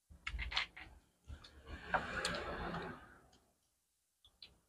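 A person eating: chewing with soft clicking mouth sounds, then a rustle lasting about two seconds.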